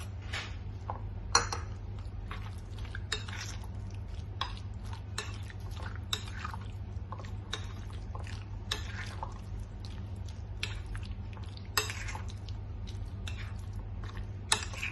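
Metal spoon clinking and scraping against a glass bowl while stirring a thick, wet herb-and-yogurt marinade into chicken pieces. The clinks come irregularly, with a few sharper knocks.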